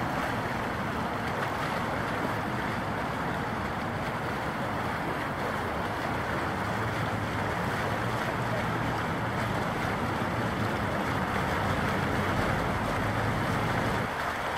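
Fast, high floodwater of the Seine rushing and swirling past a stone bridge pier, heard as a steady wash with wind on the microphone. A low hum joins in about halfway through and drops away near the end.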